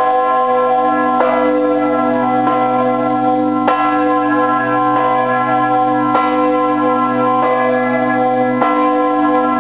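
The south tower's five church bells ringing together in full swing. A swinging bell close by strikes about once a second over the sustained ringing of the others.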